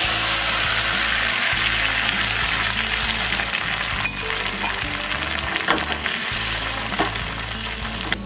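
Beaten egg sizzling in a hot frying pan as it is poured in and fries into an omelette. The sizzle starts suddenly and eases a little toward the end, with background music underneath.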